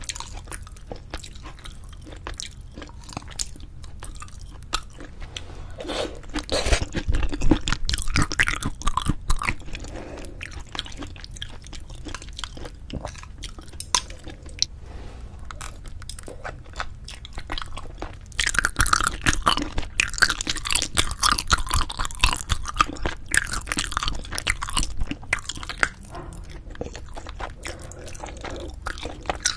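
Close-miked chewing and biting of braised spicy chicken with cheese, full of short wet mouth clicks. The chewing gets louder and denser about six seconds in, and again for several seconds from about eighteen seconds.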